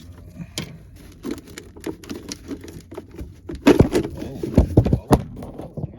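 Handling noise: irregular clicks, knocks and rustling, with a cluster of louder heavy thumps about two thirds of the way through.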